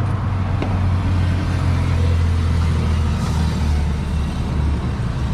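A steady low mechanical hum, like a motor or engine running in the background, with one faint click about half a second in.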